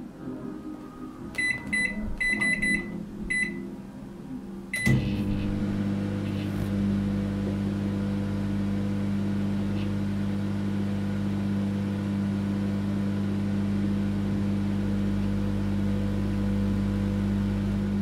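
Microwave oven being set and started: a quick series of short keypad beeps, a click with one more beep about five seconds in, then the oven running with a steady low hum.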